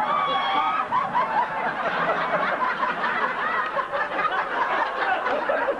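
A live audience laughing, many people at once, holding steady throughout.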